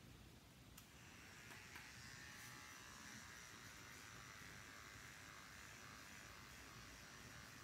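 Cordless electric hair clipper running with a faint, steady buzz as it cuts hair, settling in about a second in. Its battery is running low because it was not charged overnight.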